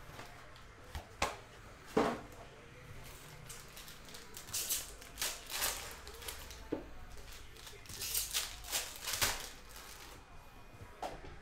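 Foil trading-card packs being handled and torn open, crinkling in short runs. There are two sharp taps in the first two seconds, then crinkling rustles around the middle and again about eight seconds in.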